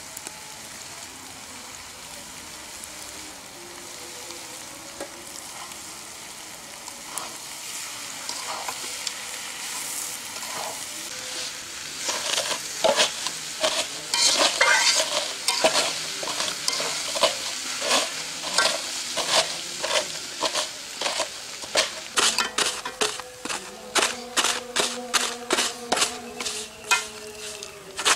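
Food sizzling as it fries in a steel karahi over a wood fire, then a metal spatula scraping and knocking against the pan as the filling is stirred, about halfway through, the strokes coming quicker near the end.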